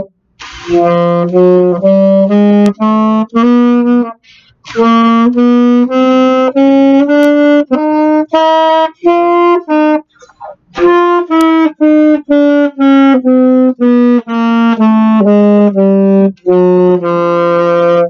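Alto saxophone playing a chromatic scale as a warm-up exercise, one separate note after another at about two notes a second. The notes climb step by step, with a short breath about four seconds in. After a pause about ten seconds in, they come back down to the bottom note.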